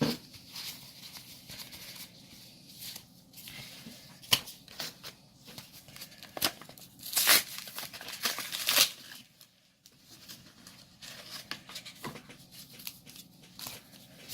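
Trading-card pack packaging crinkling and tearing, with cards rustling as they are handled, in short irregular strokes that are loudest about seven to nine seconds in.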